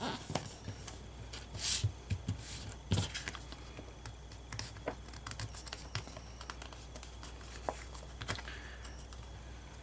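Paper and card being handled and pressed down on a cutting mat: light rustling and scattered small taps, with louder rustles at about two and three seconds.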